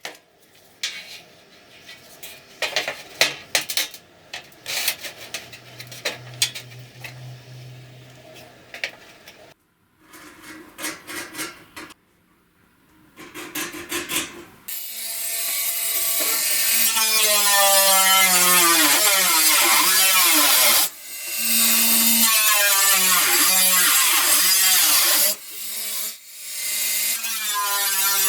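Clicks and knocks of handling, then a homemade belt grinder starts and runs loud with the abrasive belt rubbing on a workpiece. Its motor pitch sags and recovers again and again, as if under load.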